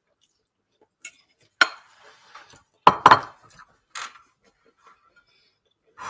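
Metal fork clinking and scraping against a ceramic pasta bowl as the bowl is handled and set down on a wooden chopping board: about five sharp clinks and knocks, the loudest pair about three seconds in.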